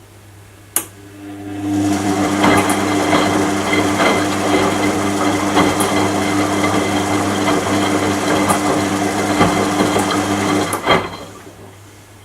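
Washing machine motor starting with a click and turning the drum for about ten seconds, a steady hum with irregular knocks, then stopping with a knock near the end.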